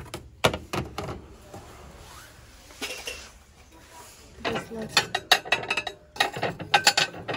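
Hard clinks and knocks of stacked plates and trays being handled: a few near the start, then a quick run of clinks through the second half.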